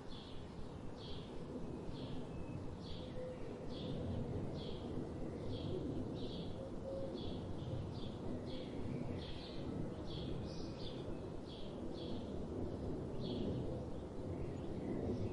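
A songbird repeating a short, high call note about twice a second, over a steady low rushing sound of river water.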